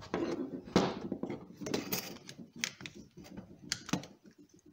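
Plastic drywall nose adaptor being worked by hand onto the nose of a Makita impact driver: irregular clicks, taps and scraping of plastic against the tool's housing, the sharpest click about a second in.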